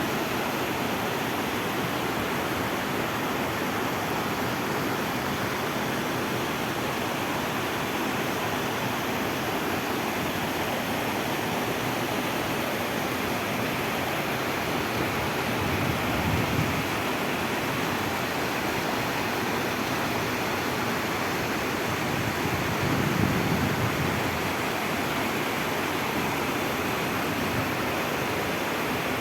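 Steady rushing of flowing water, such as an irrigation channel or small stream, with two brief low swells partway through.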